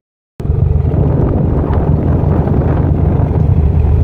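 Motorcycle engine running steadily while riding, with wind on the microphone. The sound cuts in after a split second of silence at the start.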